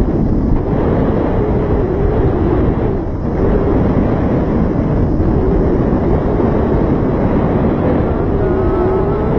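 Wind buffeting the microphone in flight under a paraglider: a loud, steady, rumbling rush with a brief lull about three seconds in.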